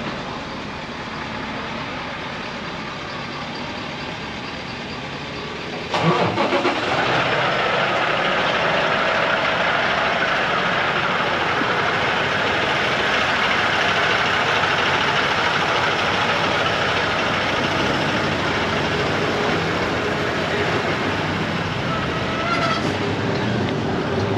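Ducati Streetfighter V4S's V4 engine with a Termignoni exhaust starting about six seconds in after steady background noise. It catches with a few quick pulses, then runs steadily at idle, with a brief rise in pitch near the end.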